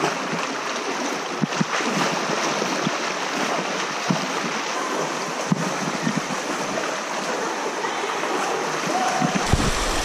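Fast river water rushing steadily over a pebbly bed, with a few short, sharp splashes from wading through the current.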